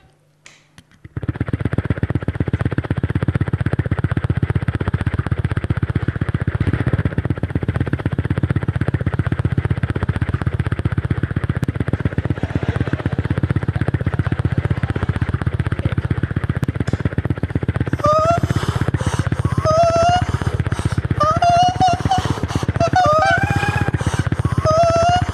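A man doing a rapid tongue trill into a microphone: a loud, sustained buzzing flutter like a motor that starts suddenly about a second in. From about 18 seconds, short rising whoops repeat over it about once a second.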